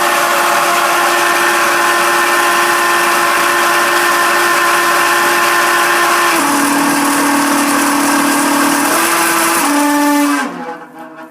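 Air conditioner motor with bad bearings running with a loud, steady whine over a hiss. The pitch steps down about six seconds in, and near the end the sound falls away with dropping pitch as the motor winds down.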